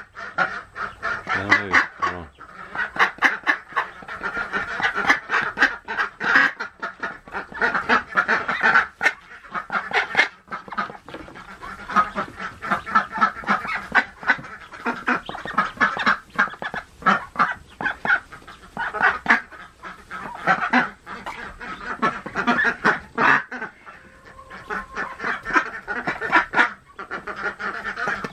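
A Golden 300 mother duck calling over her newly hatched ducklings, mixed with their peeping: a dense, unbroken stream of short bird calls, the sound of a protective hen with a fresh brood.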